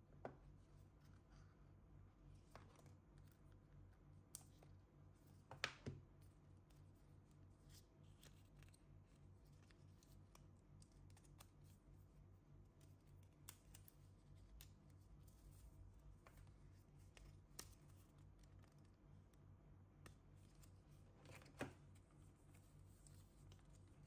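Near silence with faint handling of a Magic Mouse's cardboard tray and paper documentation sleeve: soft rustles and a few light taps and clicks. The sharpest come about six seconds in and near the end, over a low steady hum.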